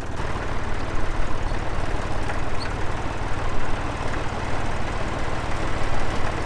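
Massey Ferguson 133 tractor's diesel engine running steadily while driving across the field, heard close up from the open driver's seat.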